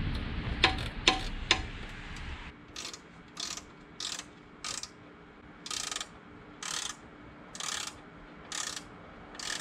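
Hand ratchet wrench worked in short strokes: a brief burst of pawl clicking about every second, about nine strokes in all, after a few sharp metal clicks in the first couple of seconds.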